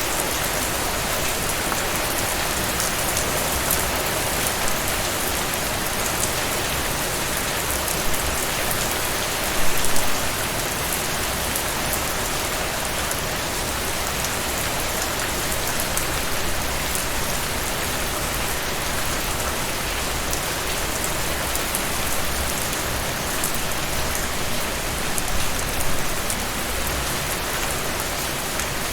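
Steady rain falling on a surface, with a dense patter of drops and a few brief louder swells, about ten seconds in and again near 25 seconds.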